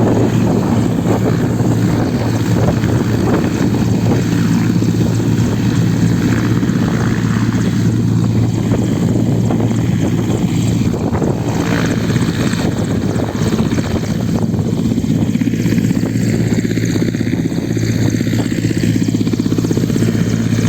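Steady loud motor hum with a constant low drone that holds the same pitch, mixed with a rushing noise.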